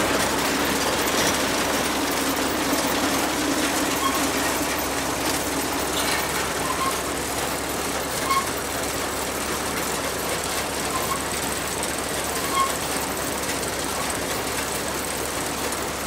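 Underhaug Superfaun potato harvester running steadily, a continuous mechanical clatter from its moving parts, with a few light clicks scattered through it.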